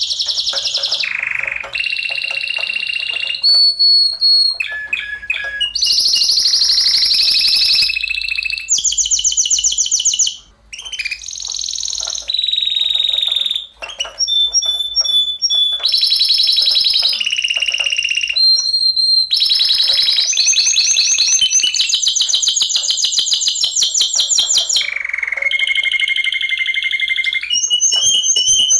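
Spanish Timbrado canaries singing: a long run of rapid trills alternating with held, steady whistled notes, broken by two short pauses.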